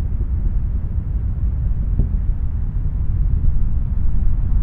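Space Shuttle Atlantis's solid rocket boosters and three main engines during ascent, heard from the ground as a steady, deep rumble.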